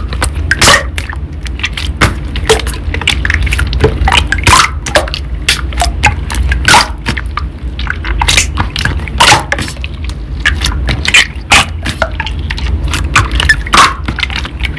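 Slime being squished, pressed and poked by hand, making irregular wet clicks and pops several times a second.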